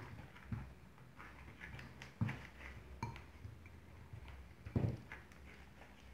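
Hands kneading and stretching glue slime to work in food colouring, giving irregular soft sticky clicks and squishes, with a couple of louder ones about two seconds in and near five seconds.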